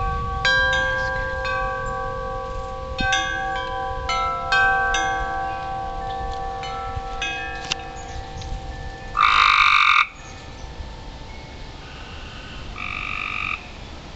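Wind chimes ringing in the breeze, many struck notes overlapping and ringing on. About nine seconds in, a loud croaking animal call of about a second, with a shorter, fainter one near the end.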